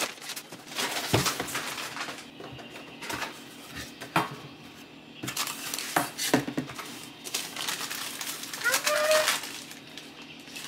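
Paper and cardboard handling: a shoebox lid lifted off and tissue paper rustled and folded back, with a few sharp knocks of the cardboard box. Near the end a short pitched vocal sound rises and holds briefly.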